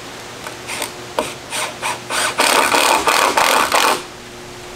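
A hand tool working wood in back-and-forth scraping strokes. The strokes start sparse, then quicken and grow louder into a near-continuous rasping before stopping suddenly about four seconds in.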